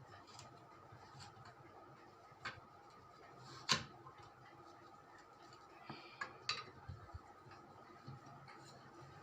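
A few light clicks and taps, the sharpest about three and a half seconds in and a small cluster around six seconds in, over a faint steady hum.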